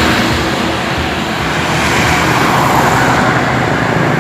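Sinar Jaya intercity coach pulling away and accelerating past at close range, its engine and tyres giving a loud, steady roar that swells a little in the middle.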